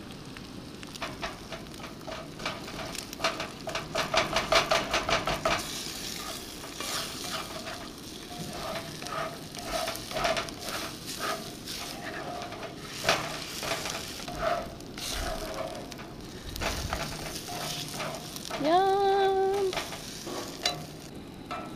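Eggs and beef chorizo sizzling in a cast iron skillet on a Coleman propane camp stove while a spatula scrapes and stirs them, with a fast run of scraping strokes a few seconds in. The skillet is new and not yet properly seasoned, so the food is sticking. Near the end a brief pitched tone rises and holds for about a second.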